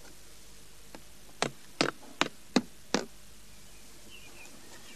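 Five sharp taps in quick succession, about two and a half a second: a marker pen striking paper pinned over a board as short strokes are drawn.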